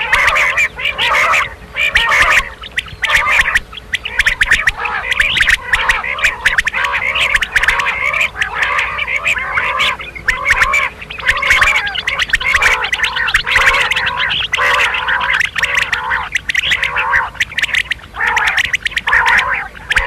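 Common quail calling: a dense, nearly unbroken run of quick, burbling chattering notes, with only a few short breaks.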